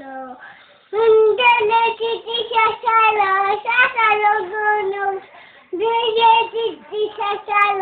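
A little girl singing in a high, steady voice, starting about a second in, with a short break past the middle before she carries on.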